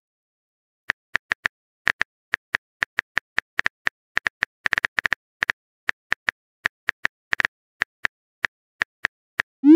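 Phone keyboard typing sound effect: a quick run of short key clicks at an uneven pace, one per letter typed, starting about a second in. Right at the end a short rising whoosh begins, the message-sent sound.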